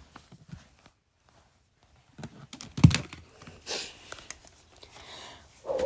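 Rustling and scattered clicks and knocks of small objects being handled, with a louder knock about three seconds in.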